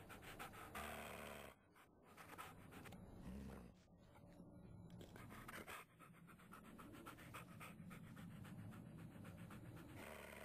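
Puppy panting rapidly and faintly.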